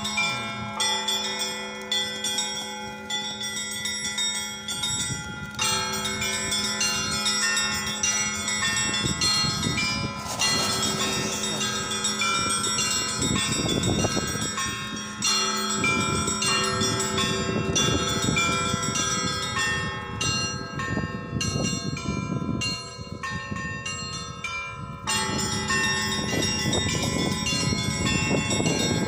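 Orthodox church bells ringing: several bells of different pitches struck again and again in a lively peal over a low bell's steady hum.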